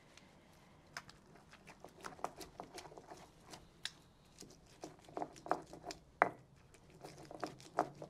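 Stone pestle grinding and knocking in a volcanic-stone molcajete, crushing tomatoes into a chunky chile salsa: irregular scrapes and taps, a few a second, with one sharper knock about six seconds in.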